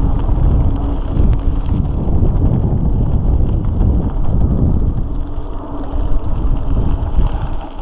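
Wind buffeting the microphone of a camera on a moving bicycle, a loud low rumble mixed with the noise of tyres rolling over a gravel road.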